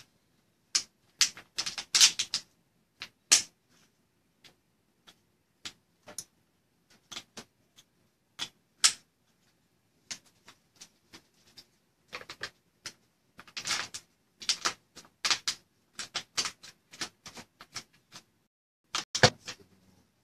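Irregular sharp clicks and taps from something off-camera. Some come in quick runs of several, others singly with gaps between.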